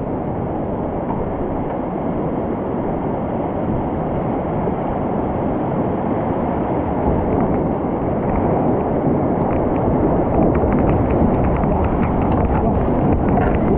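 Fast mountain stream water rushing past a small boat, a steady deep rush buffeting the microphone. A run of light sharp crackles of splashing water joins in during the second half.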